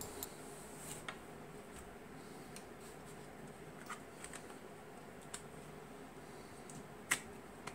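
Faint handling sounds: scattered small clicks and knocks as a yellow rubber holster is worked onto a Fluke 117 multimeter's plastic body, with one sharper click about seven seconds in.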